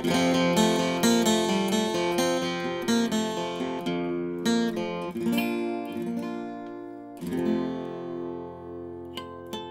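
1969 Kay 5113 small-bodied flat-top acoustic guitar played with a pick: quick picked notes and chords at first, then sparser, with a strummed chord left ringing about seven seconds in and a few more strokes near the end.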